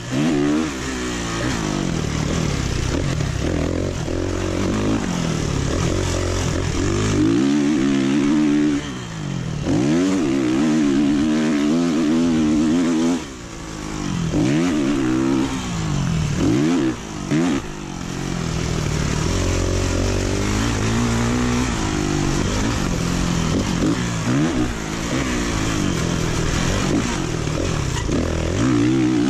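Dirt bike engine ridden on a motocross track, rising in pitch and dropping back again and again as the throttle is opened and closed. The engine briefly falls away about 9, 13 and 17 seconds in.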